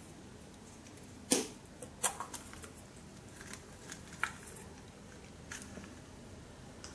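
A clear plastic capsule-toy capsule handled in the fingers: a few sharp plastic clicks and light rustles at irregular intervals, the loudest about a second in, against a faint room background.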